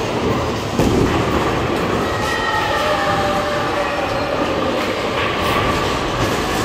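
Bowling balls rolling down wooden lanes: a steady rumble, with a thump about a second in.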